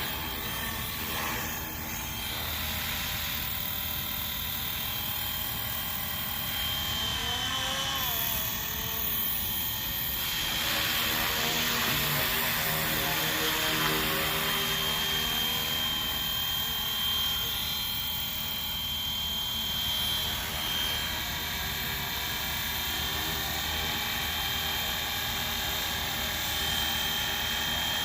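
FlyWing FW450 V3 radio-controlled electric helicopter in flight: a steady high motor whine over the whoosh of the rotor blades. The pitch wavers briefly about a third of the way in, and the sound grows louder for a few seconds around the middle as it manoeuvres.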